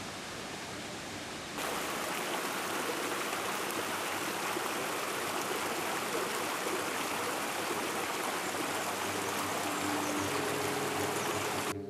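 Small mountain stream rushing and splashing in little cascades over mossy boulders into a pool: a steady full rush of water that starts suddenly about a second and a half in, after a quieter steady hiss.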